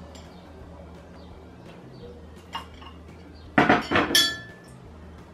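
Glassware and a spoon clinking: a few sharp clinks with brief ringing, about three and a half seconds in, as a glass water jug is set down and a metal spoon picked up beside it.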